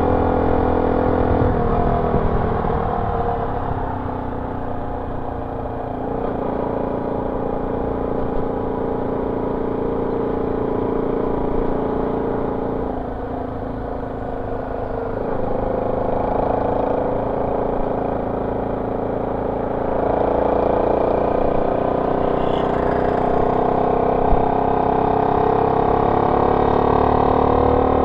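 Honda C70's small single-cylinder four-stroke engine running through an aftermarket exhaust while the bike is ridden. Its note eases off twice and picks back up, then rises and holds higher after about twenty seconds as the rider opens the throttle.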